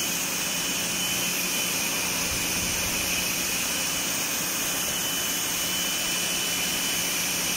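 High-pressure washer spraying a jet of water onto aluminium mesh air-handling-unit filters to wash the dust out. It makes a steady hiss over a low, even hum, unbroken throughout.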